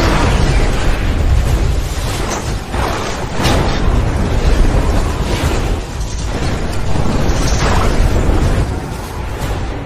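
Action-film sound mix of explosions: several sudden booms and bursts spread through a continuous deep rumble, with music faint underneath.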